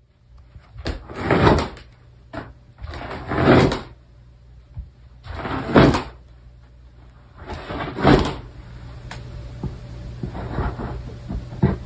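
Dog slowly climbing wooden stairs: a scuffing creak from the treads about every two seconds as it steps up, with faint clicks between.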